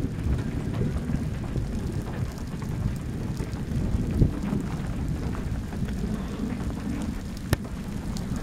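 Low, gusty rumble of thunderstorm wind buffeting the microphone, with a few scattered sharp ticks, the loudest about seven and a half seconds in.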